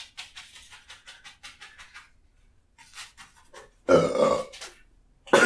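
A man's loud indigestion burp about four seconds in, lasting under a second, bringing stomach acid up the back of his nose. A second loud noise from him starts right at the end.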